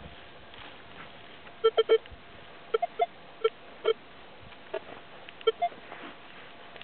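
Minelab X-Terra 705 metal detector beeping as its coil sweeps over grass: about a dozen short target tones in quick clusters, mostly at one low pitch with a few slightly higher ones, signalling metal under the coil.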